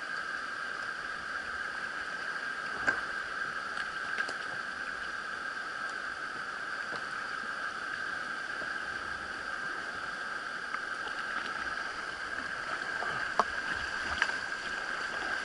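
Steady rush of creek water running through a rapid, heard from a kayak on the river, with a few sharp clicks here and there.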